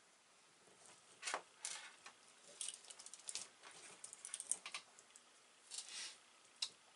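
Scattered light clicks and short rustles of jumper-wire connectors being handled and pushed onto a small circuit board, starting about a second in.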